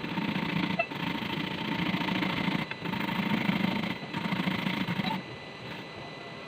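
Fresh turmeric and kencur (aromatic ginger) rhizomes being grated by hand: a fast, rhythmic rasping in about four runs with brief pauses between, stopping about five seconds in.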